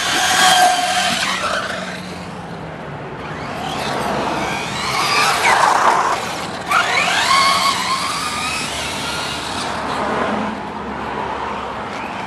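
Traxxas Slash 4x4 RC truck's electric motor whining, its pitch rising and falling again and again as it speeds up and slows down.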